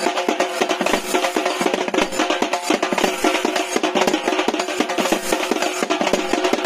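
Lezim dance music: fast, dense drumming with the rattle of many lezim being shaken and struck in time, over a few steady held tones.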